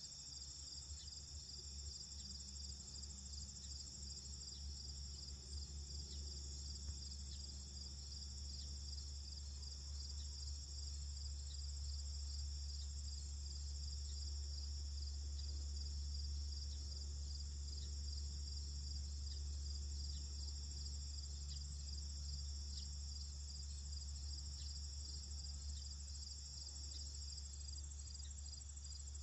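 Field insect chorus: a steady high-pitched trilling of crickets, pulsing evenly, over a low steady rumble.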